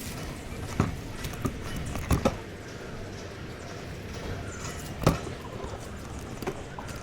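A few irregular knocks and taps, loudest about a second in, around two seconds in and about five seconds in, over a steady low background noise.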